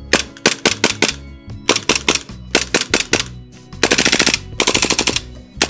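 Airsoft Glock pistol in a Roni G1 carbine kit firing: a quick string of single shots, then two fast bursts about four and five seconds in.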